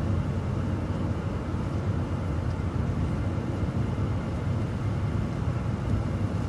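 City transit bus driving along, a steady low rumble of engine and road noise.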